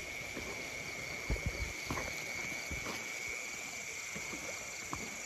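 Steady high-pitched night chorus of insects, with a few soft thuds of footsteps on wet, muddy ground, most of them in the first half.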